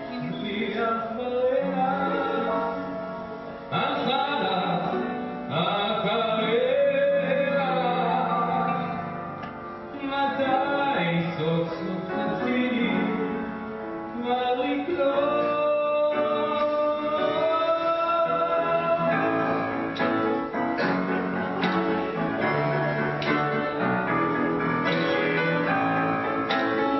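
Live singing with grand piano accompaniment, the voice holding long notes.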